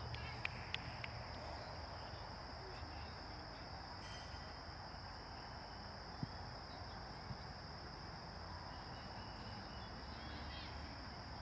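Outdoor field ambience: faint distant voices of children and onlookers over a steady low rumble of wind on the microphone, with a few short sharp knocks about half a second in and again about six seconds in.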